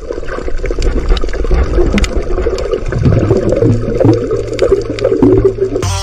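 Water heard through a submerged camera: a muffled, churning gurgle of water and bubbles, with scattered sharp clicks.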